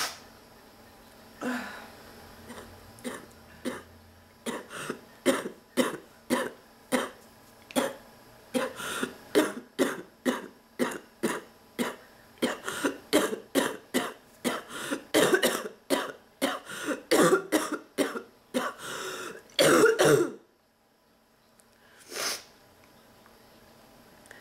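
A woman's barking cough in a long, nearly unbroken fit: dozens of short coughs at about two a second, louder toward the end, then a brief pause and a single cough near the end. It is a fit of coughing from a throat and chest illness she has been fighting.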